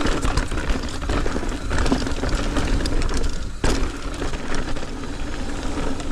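Mountain bike rolling down a dirt trail: tyres on dirt and rocks, wind rumbling on the mic, and the bike rattling with many small clicks. There is one sharp knock about three and a half seconds in.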